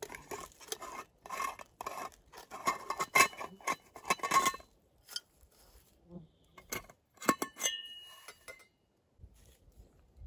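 Stainless-steel moka pot being unscrewed: a run of gritty metal-on-metal scrapes from the threads for about four and a half seconds. Then come a few sharp metallic clinks, one leaving a brief ring, as the separated parts are handled.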